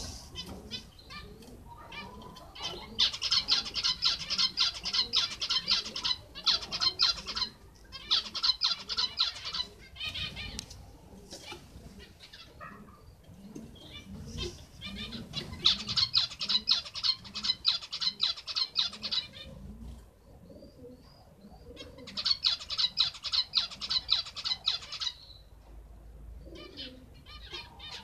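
Zebra finches singing and calling: four bursts of fast, repeated high notes, each a few seconds long, with scattered single calls between them.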